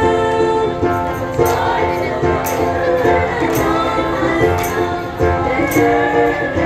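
Choir singing in harmony, holding long chords. About a second and a half in, a high jingling beat joins, about twice a second.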